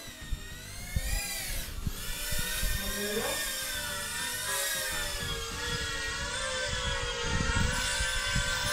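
Tiny whoop FPV drone's small motors and propellers whining in flight, the pitch rising and falling as the throttle changes. The buzz is somewhat rough, which the pilot puts down to a frame cracked in several places.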